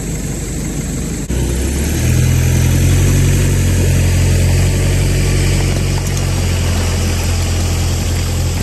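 Pickup truck engine pulling a loaded boat trailer up the ramp. It runs low at first, steps up suddenly a little over a second in as it takes the load, and holds loud and steady after that.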